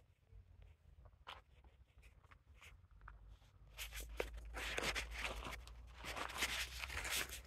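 A few quiet seconds with faint scattered clicks, then footsteps crunching on dry, gravelly desert dirt from about halfway through.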